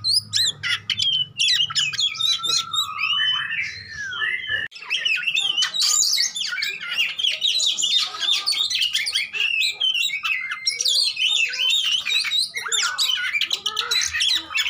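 Oriental magpie-robin singing a fast, continuous, varied song of chirps, trills and whistled notes.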